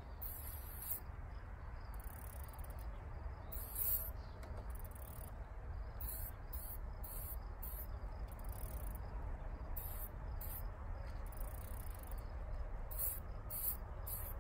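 Insects chirping outdoors in short, very high-pitched bursts, about one or two a second at an irregular pace, over a steady low rumble.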